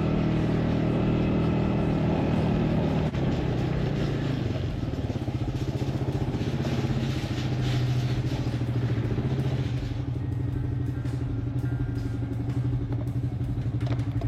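Jeep engine running; its pitch drops about three seconds in and then holds steady, and it cuts off suddenly at the end.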